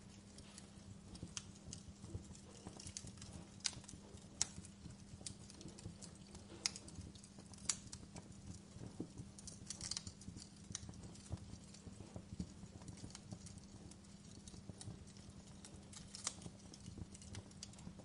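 Wood logs burning in an open fireplace, crackling with irregular sharp pops over a low steady hum.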